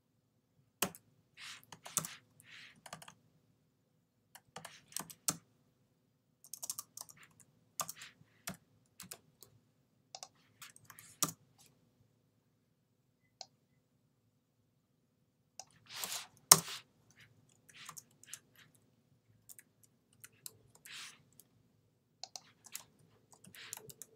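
Typing on a computer keyboard: irregular runs of keystrokes with short pauses, a break of a few seconds just past the middle, then a louder clatter of keys.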